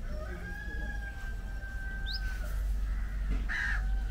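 A rooster crowing: one long held call of about two seconds that falls away at the end. A small bird's short rising chirps repeat, and a short harsh call comes near the end.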